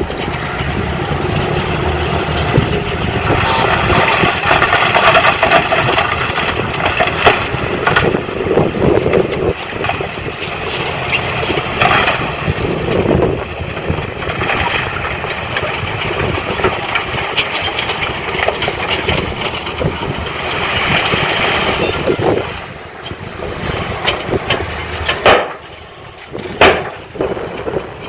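Engines of heavy earthmoving machinery running steadily, with scattered knocks. It drops quieter for a few seconds near the end, broken by a couple of sharp loud knocks.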